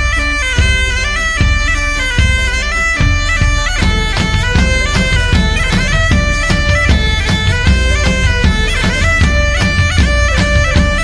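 Background folk music: a droning pipe melody over a drum beat, the drumming growing much busier about four seconds in.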